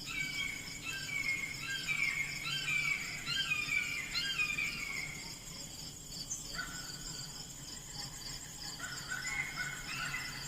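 Wild birds singing in runs of short, falling chirps for about five seconds, pausing, then starting again near the end, over a steady high trill of insects.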